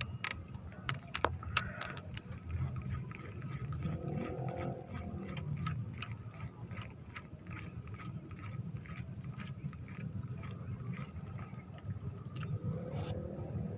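Fishing reel clicking evenly, about three clicks a second, as line is wound in, over a steady low rumble.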